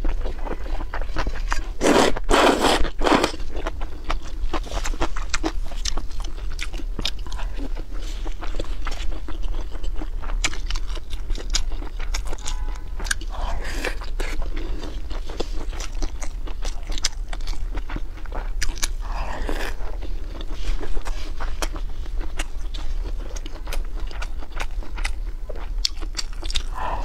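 Close-miked eating sounds: noodles slurped loudly about two seconds in, then steady chewing with many small wet mouth clicks and a few shorter slurps.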